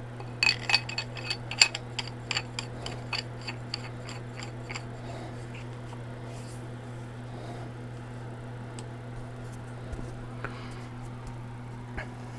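A quick run of light metallic clicks, about three or four a second, fading out after about four seconds, as paintball marker barrel parts are threaded and fitted together by hand. A few single faint clicks follow later.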